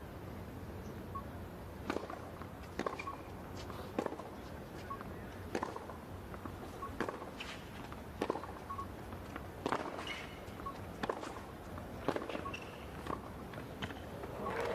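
Tennis rally on a hard court: sharp racket strikes and ball bounces about every second to second and a half, over a low steady arena hum.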